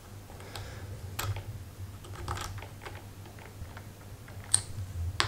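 Small, irregular clicks and ticks of a hex key turning a set screw into the hub of a 3D-printed plastic gear, tightening it against the flat of a D-shaft, with fingers handling the parts.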